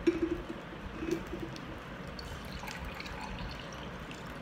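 Eating sounds from a person chewing fish and rice with the mouth closed. There is a sharp lip-smack click at the start, two short low closed-mouth hums (one at the start, one about a second in), and faint wet mouth clicks after that.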